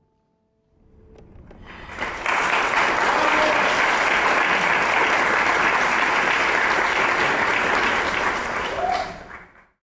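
Audience applauding: clapping starts about a second in, builds quickly to a steady ovation, then fades out and stops shortly before the end.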